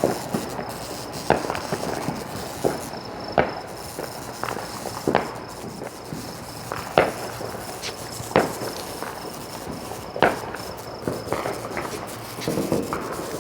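Fireworks and firecrackers popping, a sharp crack about once a second at uneven intervals, over a steady background hiss.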